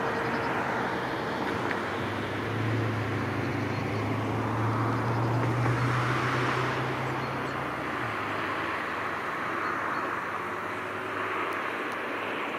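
Steady rush of distant traffic noise, swelling and fading, with a low engine drone from about two seconds in that stops about eight seconds in.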